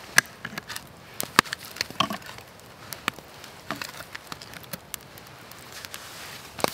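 Wooden plank being set upright against stacked logs beside a campfire: a few scattered sharp wooden knocks and clicks, the loudest near the start and about a second and a half in.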